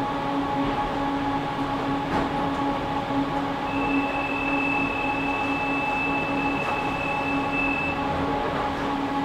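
Prague tram standing still at a stop, heard from inside: a steady electrical hum from its onboard equipment. A steady high tone joins from about four seconds in and stops about a second before the end.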